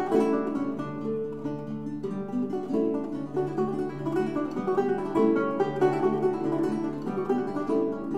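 Background music: a plucked-string instrument picking a flowing melody over chords.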